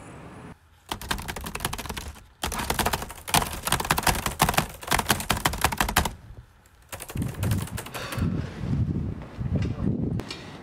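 Rapid runs of sharp clicks, like fast typing on a keyboard, broken by short pauses. Softer, lower thuds follow in the last few seconds.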